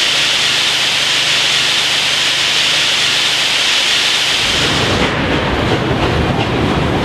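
A 2-8-2 narrow-gauge steam locomotive hissing steam steadily while it stands taking on water for its boiler. About four and a half seconds in, the hiss gives way to the rumble of the train rolling along, with wind noise.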